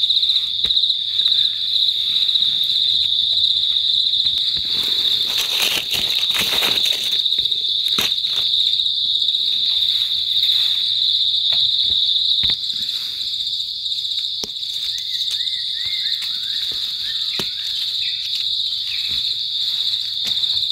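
A steady, high-pitched chorus of forest insects, crickets or cicadas, with scattered crunches, rustles and twig snaps from feet and hands in dry leaf litter; the chorus drops slightly in level about halfway.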